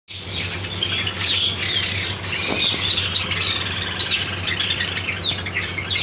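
A flock of violet-blue masked lovebirds chattering: a constant stream of rapid, high, sweeping chirps and squawks, over a steady low hum.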